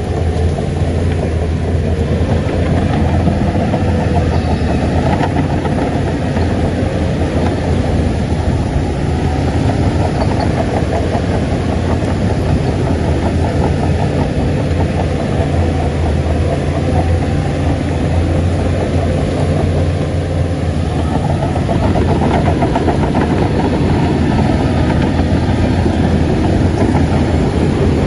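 Heavy diesel earthmoving machinery running steadily, with a deep, continuous engine hum.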